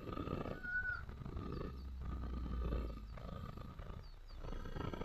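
Repeated rough scraping strokes on a dry bamboo tube as it is cleaned up after being cut.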